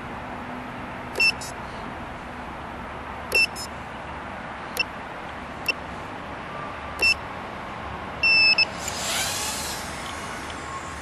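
Tinyhawk 2 micro drone's piezo buzzer beeping over a steady hiss: two quick double beeps, then three single beeps, then a longer beep about eight seconds in. Just after the long beep comes a short rising whir.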